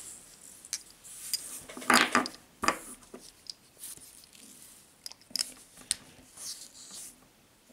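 Scattered clicks and light taps of an Online calligraphy fountain pen being handled and put together by hand, with a few louder scrapes about two to three seconds in.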